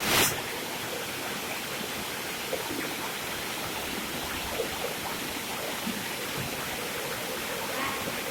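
Fast-running river water rushing and splashing steadily, with a short loud burst right at the start.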